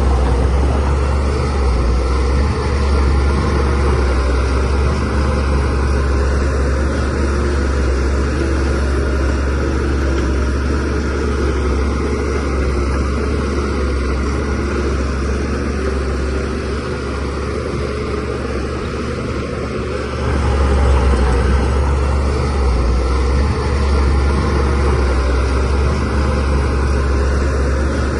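DH17C3 bulldozer's diesel engine running under load, a steady deep drone that swells louder right at the start and again about twenty seconds in.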